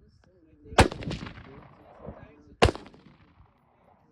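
Two gunshots about two seconds apart, each sharp crack trailing off in a short echo.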